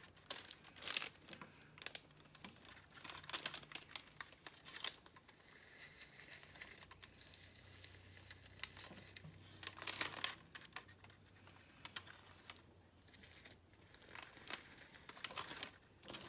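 Hands kneading and pressing slime full of foam beads on a sheet of paper: faint, irregular crinkling and crackling in short clusters, with quieter gaps.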